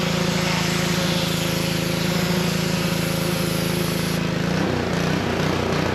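Gas-engine pressure washer running with the steady hiss of its high-pressure water spray. About four seconds in, the engine note shifts and wavers.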